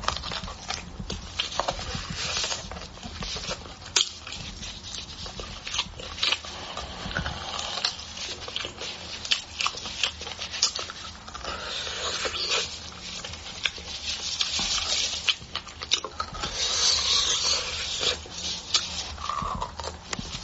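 Close-up eating sounds of beef bone marrow being sucked out of bones: irregular wet slurps, smacks and clicks, with a few longer sucking bursts.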